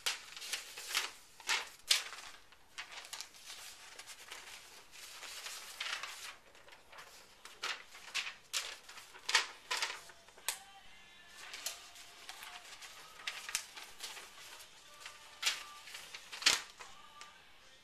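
Paper sheets rustling and crackling as handwritten signs are held up and swapped, with irregular sharp crackles throughout.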